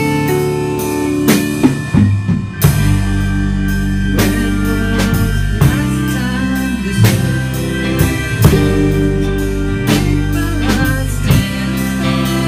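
A rock band playing live in rehearsal: guitar chords and held notes over low bass notes, with a drum kit keeping a steady beat of about two hits a second.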